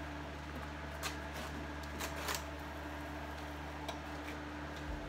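Steady low electrical hum of a garage, with a few light clicks and rustles as the vinyl roof covering is handled.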